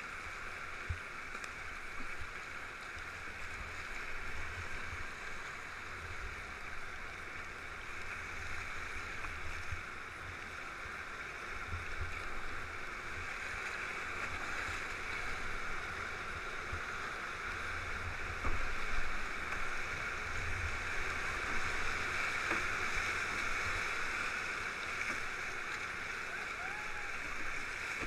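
Rushing whitewater of river rapids, heard from a canoe running them: a steady hiss that grows a little louder about two-thirds of the way in, with an uneven low rumble underneath.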